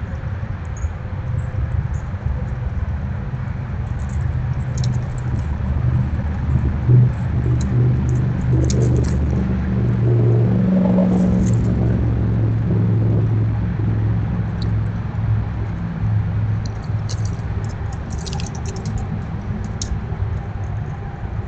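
Road traffic rumbling, a vehicle passing that swells to its loudest about halfway through and then fades.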